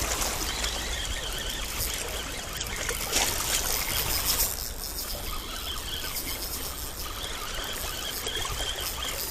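Spinning reel being cranked to wind in a hooked cuttlefish, its gear whine wavering with each turn of the handle, over a steady wash of water.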